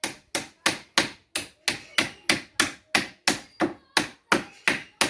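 Hammer knocking nails back through a wooden pallet plank, steady blows about three a second.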